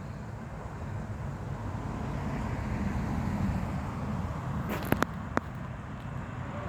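Low vehicle rumble that grows slowly louder, with three sharp clicks close together about five seconds in.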